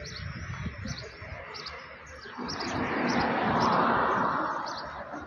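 Small birds chirping repeatedly, while a car drives past about halfway through, its road noise swelling and then fading away.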